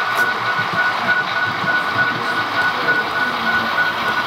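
HO scale model locomotive running on the layout track: a steady motor-and-gear whir with a thin whine that pulses a few times a second.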